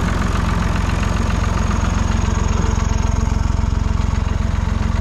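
Massey Ferguson 461 tractor's diesel engine running steadily at an even pulse, heard from the driver's seat as the tractor drives along.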